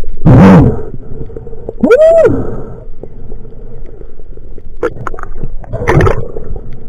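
Muffled underwater sounds from a spearfisher handling a speared tuna on the line: a loud gurgling burst near the start, a short muffled cry that rises and falls about two seconds in, then a few knocks and another gurgling burst near the end.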